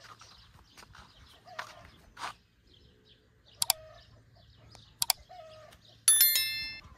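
A few sharp clicks, then about six seconds in a loud bell-like metallic ring that fades out in under a second.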